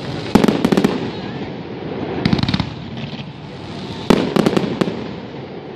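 Aerial fireworks shells bursting in the sky: three volleys of sharp bangs and crackles, about two seconds apart.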